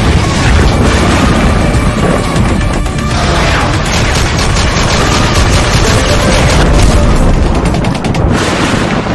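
Action-style intro sound effects over music: a deep boom, then rapid machine-gun fire, loud throughout.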